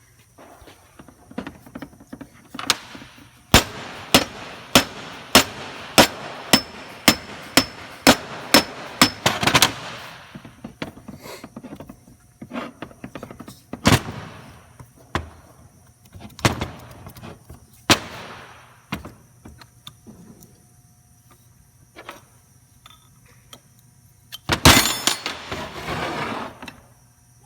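Sharp metal-on-metal strikes while a hydraulic gear pump is being opened: a run of about a dozen evenly spaced, ringing blows, about two a second, followed by a few single strikes and a quick flurry near the end.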